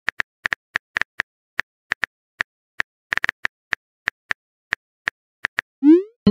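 Simulated phone-keyboard key clicks from a texting-story animation: a quick, irregular run of short taps as a message is typed, ending near the end in a short rising swoosh as the message is sent.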